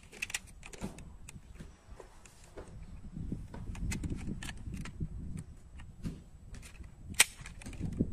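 Small clicks and handling noises from a die-cast BMW Z4 model car being turned in the hands and its hinged parts worked open and shut, with one sharp click about seven seconds in over a low rumble.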